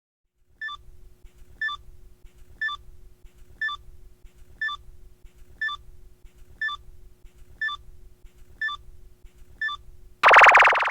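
Countdown timer sound effect: ten short beeping ticks, one a second, over a faint steady hum, ending near the end in a loud buzzer-like blast when time runs out.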